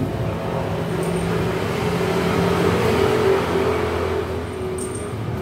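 A motor vehicle's engine running as it passes by, growing louder to a peak about three seconds in and then fading.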